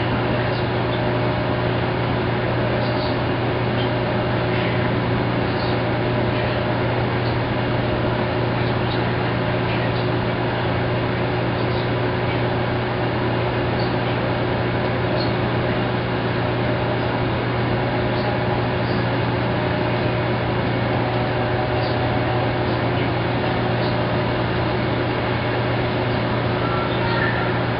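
Maytag SoftMount commercial front-load washer running mid-cycle: a steady motor hum at an even level, with faint high clicks now and then.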